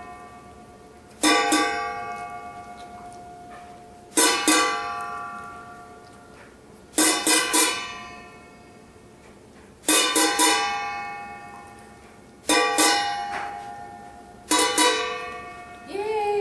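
Stainless steel cooking pot struck with a metal spoon: groups of two or three quick clangs every few seconds, each ringing out and slowly fading.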